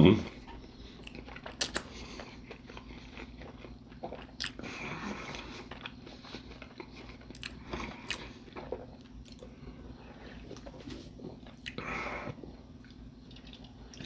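A person chewing and biting into a chili cheese dog on a bun close to the microphone: scattered mouth clicks and a few louder bites, over a steady low hum.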